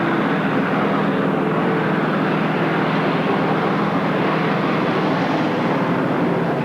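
A vehicle engine running steadily with an even low hum.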